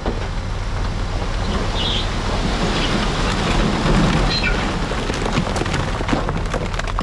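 Loose rock sliding and clattering as heavy earthmoving machinery moves it, over the steady low rumble of a large diesel engine. The rock noise swells about four seconds in.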